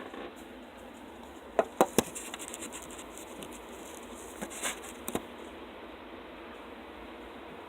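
Several sharp taps over a steady faint hiss: three in quick succession about a second and a half in, and a few more between four and five seconds in.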